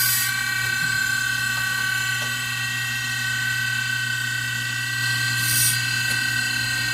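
Circular saw blade sharpening machine running with a steady motor whine and hum, light ticking clicks, and two short hissing bursts, one at the start and one about five and a half seconds in.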